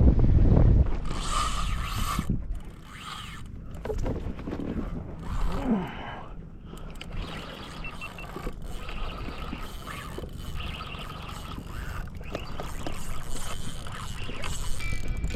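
Wind buffeting the microphone for about the first second, then a quieter stretch of small mechanical clicks and scrapes.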